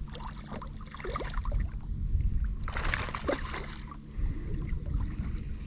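Water sloshing and trickling around a small fishing boat over a steady low rumble, with a brief louder burst of noise about three seconds in.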